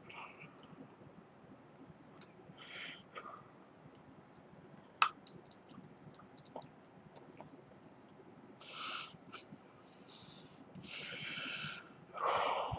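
Small dog licking and mouthing a hard-candy lollipop held out to it: scattered faint clicks of tongue and teeth on the candy, broken by a few short slurping bursts, the loudest near the end.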